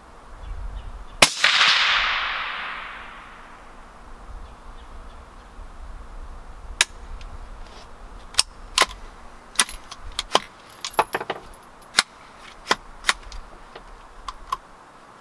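A single shot from an AR-15-pattern rifle (18-inch .223 Wylde barrel, muzzle brake) about a second in, its echo dying away over a couple of seconds. It is followed by a string of sharp metallic clicks and clacks from the rifle being worked as a malfunction is cleared.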